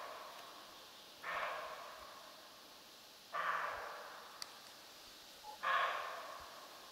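Siberian roe deer buck barking: three hoarse barks about two seconds apart, each dying away in an echo. A roe buck's bark at a person it has spotted.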